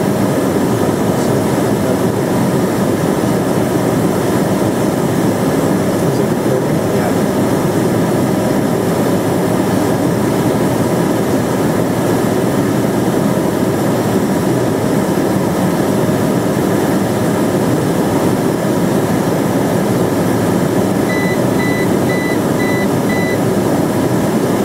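Steady in-flight cockpit noise of an Eclipse 500 light jet: the rush of airflow and the hum of its twin Pratt & Whitney PW610F turbofans. Near the end, a run of about five short high beeps, about two a second.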